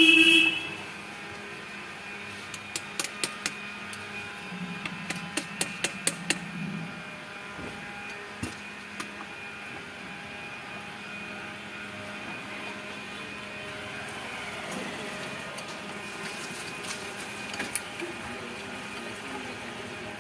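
Motorcycle repair work: a short horn blast at the start, then a string of sharp metallic clicks and taps from hand tools, most of them between about three and seven seconds in, over a steady background hum.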